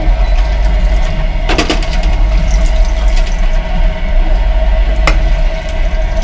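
Water running from a push-button tap into a small steel train washbasin, splashing as hands scoop it onto soapy hair, over the steady low rumble of the moving train. A louder splash-like burst comes about a second and a half in and a sharp click near five seconds.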